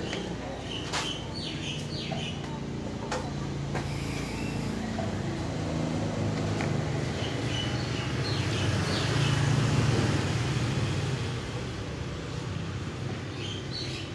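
An engine running with a low, uneven hum that grows louder toward the middle and then eases off. Birds chirp briefly now and then, and a few sharp clicks come in the first few seconds.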